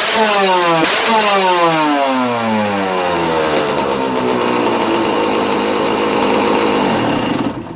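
Two-stroke engine blipped once, then its revs fall away over about two seconds and it settles into a steady idle. It is running well.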